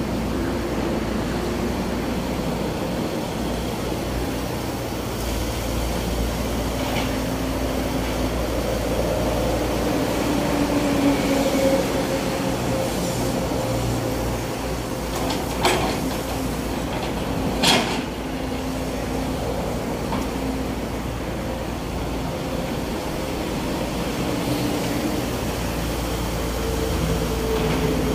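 Sumitomo S265 hydraulic excavator's diesel engine running steadily while it digs, its pitch shifting a little with the work, over the noise of passing expressway traffic. Two sharp knocks come about 16 and 18 seconds in.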